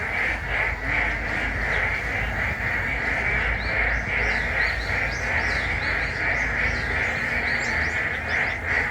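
Dense chorus of many frogs calling at once, a steady massed trilling. Short bird chirps join over it from about midway.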